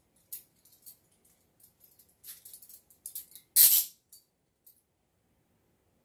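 Steel Hiatt Peerless swivel-linked handcuffs being handled and taken off a wrist: scattered light metallic clicks and clinks, then one much louder metal clatter a little past halfway.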